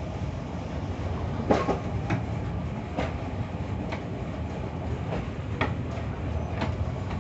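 Kintetsu Nishi-Shigi Cable funicular car running uphill, heard from inside the car: a steady low rumble of the running gear, with sharp clacks about once a second from the wheels on the track, the loudest about a second and a half in.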